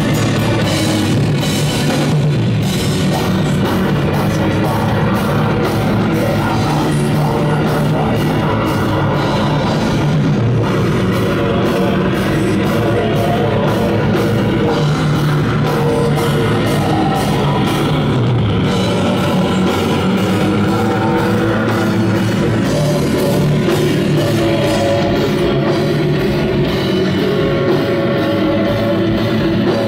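Black metal band playing live: distorted guitars over a steady drumbeat, loud and dense throughout.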